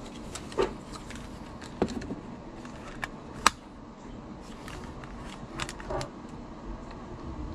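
Plastic clicks and handling noise from a Panasonic portable cassette player turned over in the hands, its lid and casing clicking now and then. A sharp click about three and a half seconds in is the loudest.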